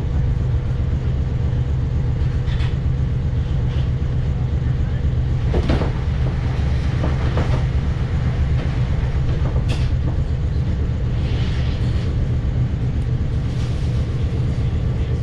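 Passenger train running, heard from inside the carriage: a steady low rumble with a faint steady hum, broken by a few sharp clicks and knocks from the wheels on the track.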